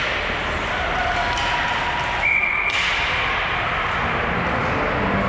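Ice hockey play in an arena: a steady din of skates and sticks on the ice with a few knocks. A referee's whistle sounds once, briefly, a little over two seconds in, stopping play.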